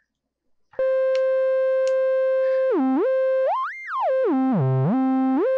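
Qun synthesizer sounding one held note that starts under a second in, its pitch stepping by whole octaves as the oscillator 1 octave setting is turned: down one octave and back, up two, then down to two octaves below the start before returning.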